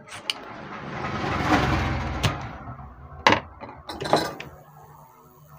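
Workbench handling noise that swells and fades over about three seconds, then a few sharp clicks and knocks about a second apart, from a spring-loaded desoldering pump and a circuit board being handled while a transistor is desoldered from a TV power-supply board.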